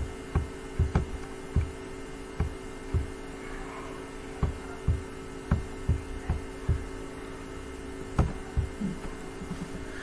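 Steady electrical hum in the recording, with a dozen or more soft knocks and clicks at uneven intervals.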